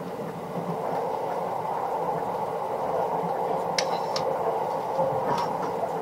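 Running noise inside a moving JR West 681 series limited express car: steady wheel-on-rail noise that grows slowly louder, with a few short clicks about midway.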